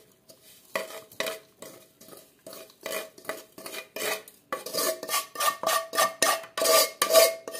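Dried milk being scraped out of a stainless-steel pot, a run of scraping strokes that make the pot ring. The strokes are spaced out at first and come faster and louder from about halfway through.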